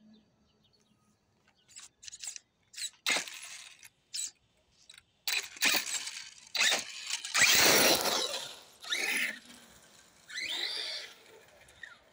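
Radio-controlled car's electric motor whining and its tyres squealing on asphalt in short, irregular bursts, loudest about halfway through.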